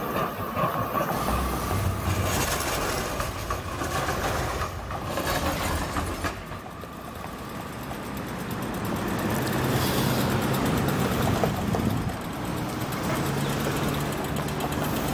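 City street traffic: trams and cars going by. A low, steady engine hum of idling traffic comes in during the second half.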